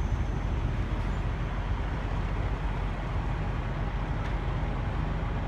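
Steady low rumble of a semi truck's diesel engine with road noise, unbroken throughout.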